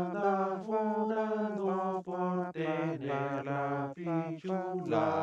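One man's voice overdubbed into several harmony parts, singing a cappella and holding chords that change about once a second, with brief breaks about two and four seconds in.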